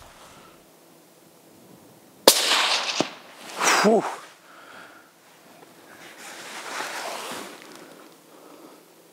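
A single rifle shot about two seconds in, sharp and loud with a short echoing tail, followed about a second later by a loud breathy sound.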